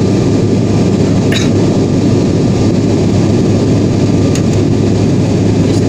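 Steady low drone of an airplane's cabin in flight, with a faint high tone running through it and a couple of faint clicks.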